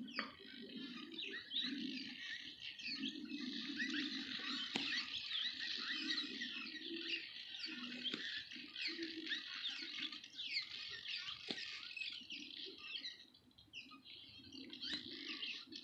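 Many small birds chirping and twittering at once, a dense chorus of short, high, overlapping notes that thins out briefly near the end before picking up again.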